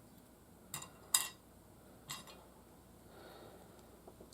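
Hard plastic parts of a snap-together building-block figure kit clicking as they are handled and fitted: three sharp clicks within about the first two seconds, the second the loudest, then a few faint taps.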